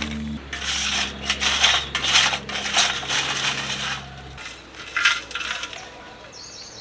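Pieces of freshly made wood charcoal clinking against a metal tin and dropping into a plastic zip bag, which crinkles as they land. There is a quick run of light clinks and rustles, then another burst about five seconds in as the tin is tipped into the bag.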